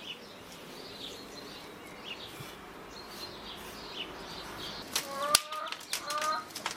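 Small birds chirping sparsely in the background. About five seconds in, sharp clacks of kindling and firewood being handled at a wood stove, mixed with a few short squeaky rising sounds.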